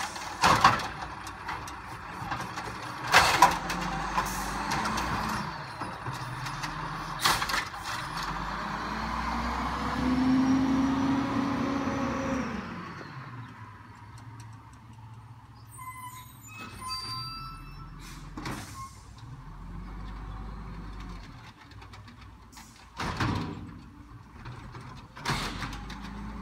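Automated side-loading garbage truck emptying carts: the engine runs under a series of sharp bangs as carts are dumped into the hopper, and a whine rises and falls about ten seconds in as the engine is worked. It then goes quieter, and two more bangs come near the end as it empties the next carts.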